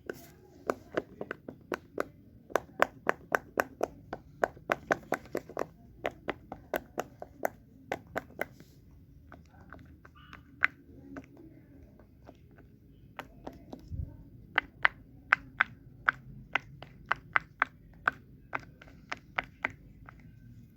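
Fidget toy clicking: runs of sharp clicks at about four a second, pausing for a few seconds midway, with one dull thump before the clicking resumes.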